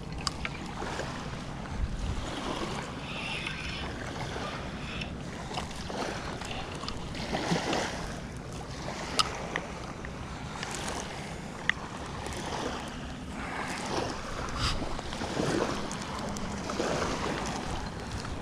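Wind buffeting the microphone over small waves lapping at the shoreline, with two sharp clicks in the second half.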